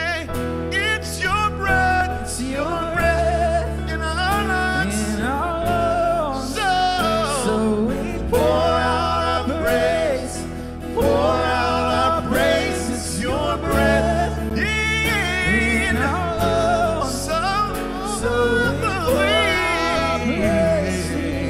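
Live gospel-style worship song: a male lead singer sings with long runs and bends in pitch and vibrato over a band of keyboard, electric bass and acoustic guitar.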